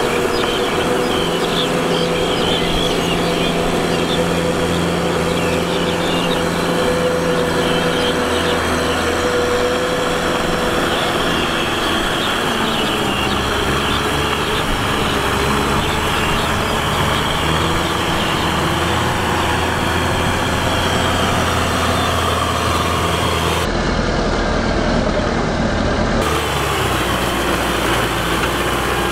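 Kubota M6040 tractor's four-cylinder diesel engine running steadily as the tractor pulls a rear rotavator through wet paddy mud.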